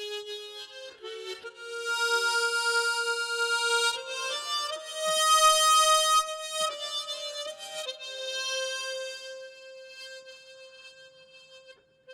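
Harmonica playing a slow gospel melody in long held notes, with chords sounding together. It swells in the middle and softens near the end.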